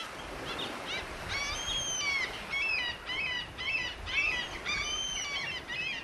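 Beach ambience: birds chirping in quick, repeated short calls over a steady wash of sea waves.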